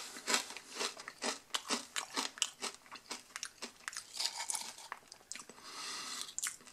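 A person chewing a mouthful of jalapeño cheddar potato chips: a quick, irregular run of crisp crunches that thins out near the end.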